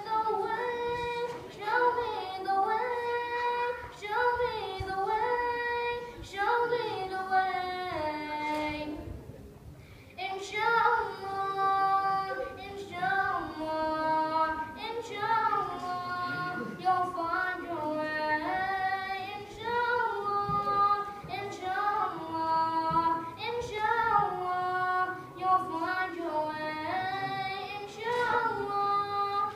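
A boy singing a nasheed solo and unaccompanied, one high voice carrying long, ornamented melodic phrases. He breaks off for a breath about nine seconds in, then goes on singing.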